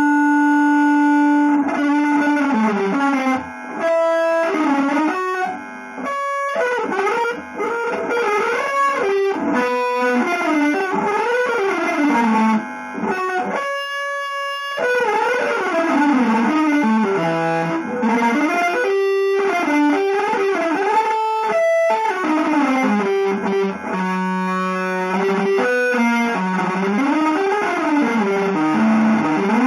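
Electric guitar with effects and light distortion playing fast single-note lines that run up and down in pitch, in a free-jazz, avant-garde style. It opens on a long held note, and a few notes are held longer, one high near the middle and one low a little later.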